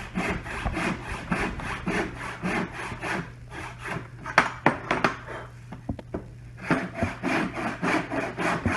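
Handsaw cutting through wood in quick, even back-and-forth strokes. About halfway through the strokes break off for a moment with a few sharp taps, then the sawing starts again near the end.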